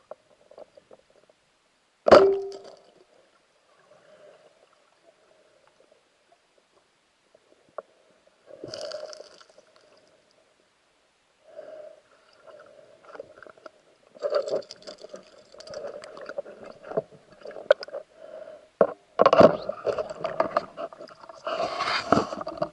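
Underwater speargun firing: one sharp crack with a short ring about two seconds in. It is followed by a faint steady hum and, from the middle on, a busy stretch of knocks and scraping as the shooter swims and handles the gun and its line underwater.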